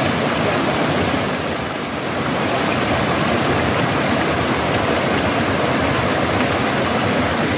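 Mountain valley stream rushing and splashing over rocks, a steady loud wash of water.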